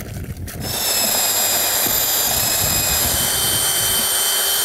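Corded drill with a paddle mixer whipping quick-setting cement in a plastic bucket. The motor starts about half a second in and then runs at a steady high whine.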